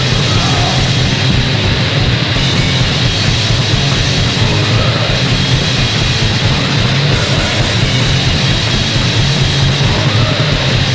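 Loud, distorted punk rock played by a full band, a dense and unbroken wall of sound.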